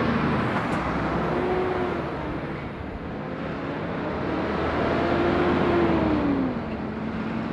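Two lorries passing close one after the other: a Scania tractor unit pulling a curtain-sided trailer at the start, then a DAF rigid curtainsider about five seconds in. Their diesel engines and tyres swell as each goes by, the engine note bending in pitch.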